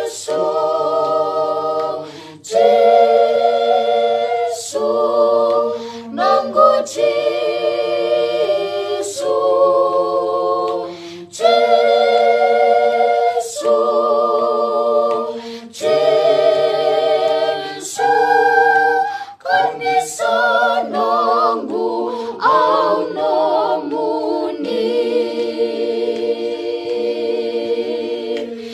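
Small family choir of children and adults singing a Fijian hymn a cappella, several voices together in long held notes with a wavering vibrato, phrase after phrase with short breaths between.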